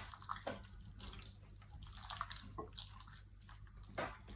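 Faint wet sounds of raw chicken pieces being handled and cut with a knife, with a few soft knocks.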